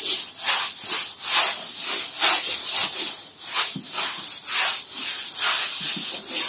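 Stiff-bristled push broom scrubbing a wet, soapy, rough concrete floor: rhythmic swishing, scraping strokes about two a second.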